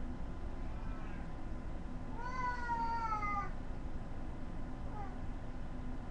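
Domestic cat meowing: one long, drawn-out meow about two seconds in that falls slightly in pitch, with a couple of fainter short meows before and after.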